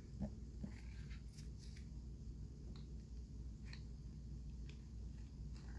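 Small scissors snipping at a lip liner's packaging: a few faint, scattered snips and clicks.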